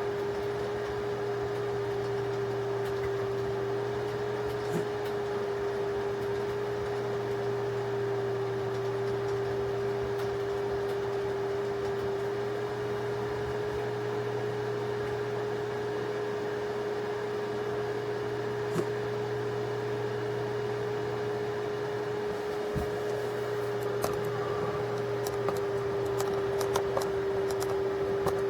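Steady hum at a single pitch over a low background drone, with a few light clicks near the end.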